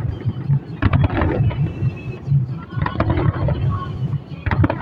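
Aerial firework shells bursting in quick succession: a dense run of bangs and crackles over a continuous low rumbling boom.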